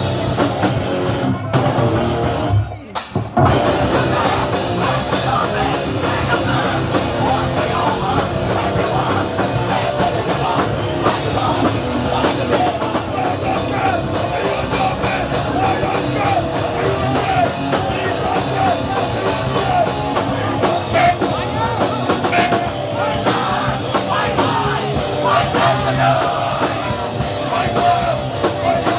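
Live hardcore punk band playing loud, fast rock: drum kit, distorted guitar and bass, with vocals over it. The band stops for a split second about three seconds in, then comes straight back in.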